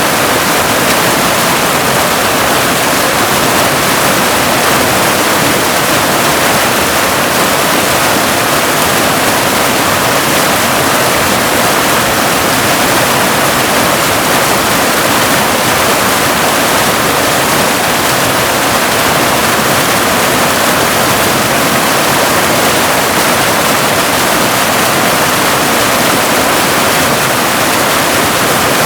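Waterfall: water cascading in a loud, steady rush that stays even throughout.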